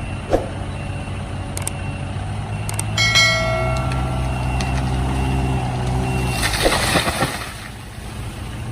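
A vehicle engine running steadily, used to pull a tree down with a rope. A higher tone joins it for about a second, about three seconds in, and a short burst of noise comes about six and a half seconds in.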